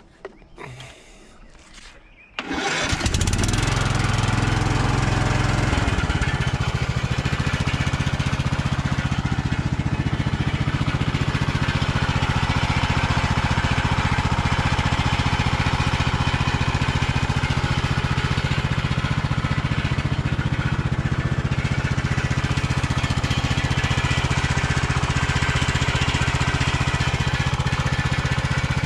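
Kohler Courage 20 hp single-cylinder engine on a Craftsman riding mower starting about two and a half seconds in, then running steadily; its low note shifts about six seconds in.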